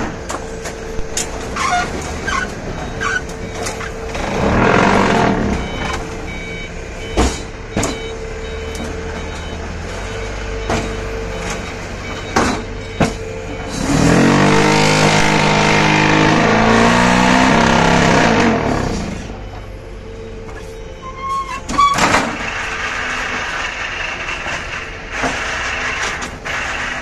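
QTY9-18 hydraulic concrete block making machine running through its cycle. A steady pump hum runs under repeated metal clanks and knocks. About halfway through comes a louder buzzing spell of about five seconds, the mould vibration compacting the blocks, and its pitch sinks as it winds down.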